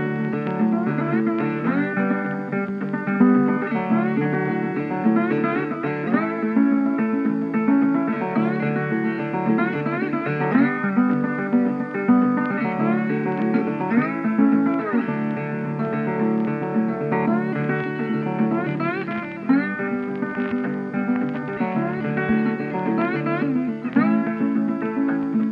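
Background music led by guitar, steady throughout.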